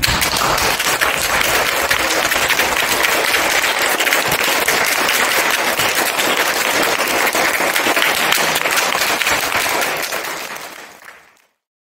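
Audience clapping steadily, fading away near the end.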